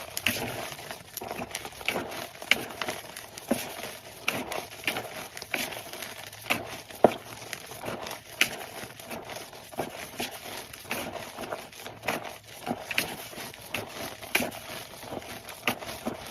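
Block of pressed chalky powder being crushed and crumbled: a dense run of irregular, crisp crackles and crunches, with one sharper crack about seven seconds in.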